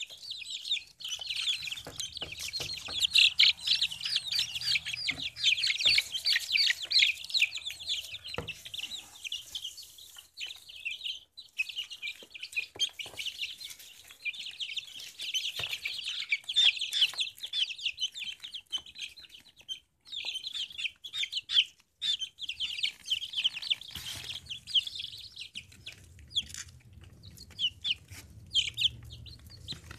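A brood of chicks peeping, many short high-pitched cheeps overlapping almost without a break, with a couple of brief lulls.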